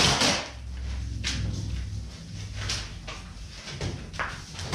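Cardboard bike box being opened by hand: the flaps and packing scrape and rustle in a few short bursts, roughly a second and a half apart, over a steady low hum.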